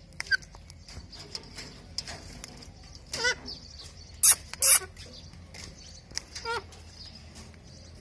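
Caged Alexandrine parakeets giving a few short, harsh squawks and chirps. The two loudest come close together about four and a half seconds in, among small scattered clicks and taps.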